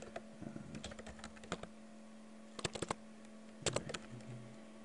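Typing on a computer keyboard: scattered keystrokes at first, then two quick runs of keystrokes past the halfway point.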